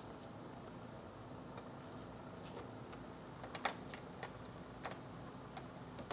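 Faint, scattered clicks and taps of a socket wrench tightening the bolts along the top of a car's front bumper cover, a few clicks spread out irregularly.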